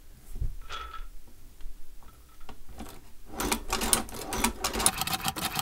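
Hand-cranked Chinese shoe patcher (cobbler's leather sewing machine) stitching through scrap leather: a few scattered clicks and knocks at first, then, from a little past halfway, rapid steady clicking as the needle mechanism runs stitch after stitch.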